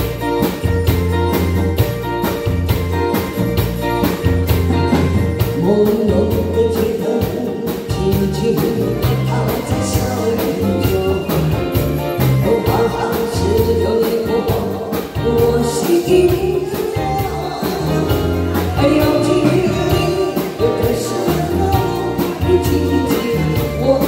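Live band with drum kit, bass guitar, electric guitar and keyboard playing a song with a steady beat, and a woman singing through a microphone.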